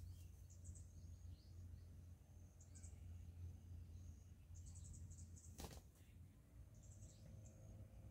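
Quiet outdoor ambience: faint high-pitched chirping trills recurring every second or two over a low steady hum, with one sharp click about five and a half seconds in.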